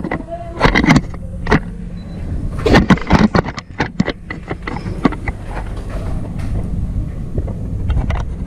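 Airsoft gunfire: sharp, irregular snaps and clicks of shots, several close together near the start and around three seconds in, over a steady low rumble.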